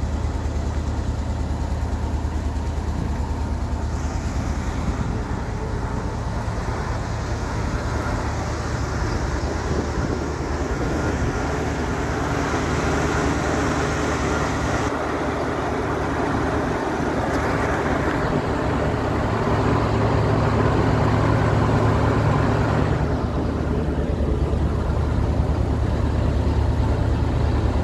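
Engine of a 1994 Frontier Flyer motorhome running steadily at idle, a low even drone that gets somewhat louder about two-thirds of the way through.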